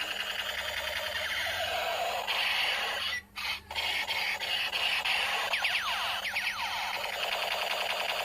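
Battery-powered toy sniper rifle playing its electronic firing sound effects: a harsh buzzing noise with repeated sweeping laser-like tones, cutting out briefly about three seconds in.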